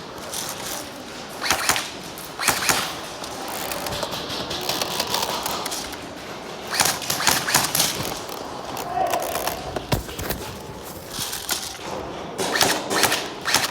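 Airsoft guns firing in short rapid bursts of sharp clicks, several volleys through the stretch, with a longer run of shots about seven seconds in. A single low thud comes near the end.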